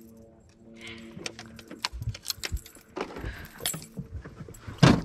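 Light metallic clicking and rattling of fishing tackle being handled in a boat, with a steady hum in the first second and a loud knock near the end.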